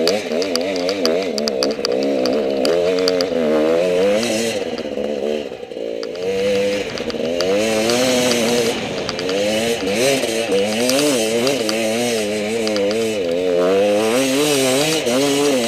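Enduro motorcycle engine revving up and down as the throttle is worked over rough trail, its pitch rising and falling every second or so. The revs drop off briefly about six seconds in.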